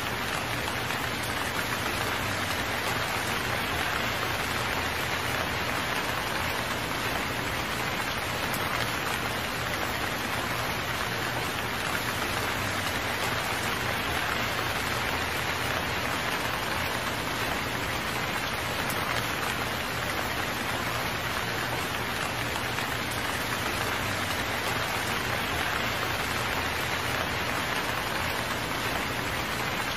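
Steady rain falling, an even, unbroken hiss of drops with no change in strength.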